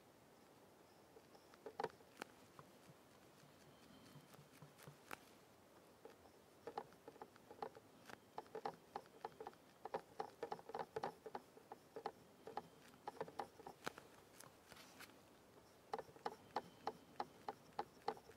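Oil-paint brush dabbing on the canvas in quick light taps, several a second, in runs with short pauses between.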